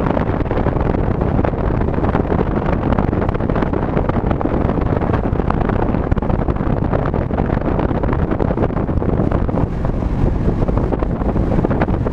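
Car driving at a steady speed: a constant rush of road and wind noise.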